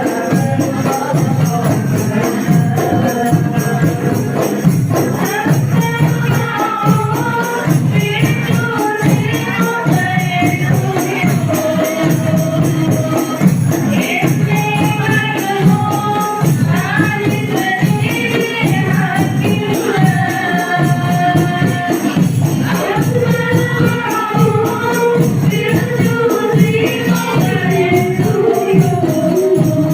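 Hadroh ensemble playing: rebana frame drums beat a dense, steady rhythm under voices singing a sholawat melody, heard through the sound system during a sound check.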